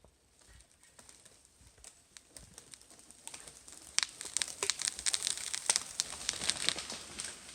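Irregular crackling and snapping, sparse at first and growing denser and louder from about four seconds in.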